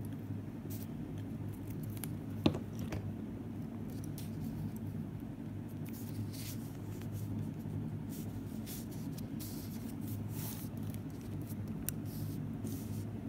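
A glue stick rubbing over a torn paper scrap and fingers pressing and smoothing paper strips onto a notebook page: short scratchy, rustling strokes, with one sharp click about two and a half seconds in, over a steady low hum.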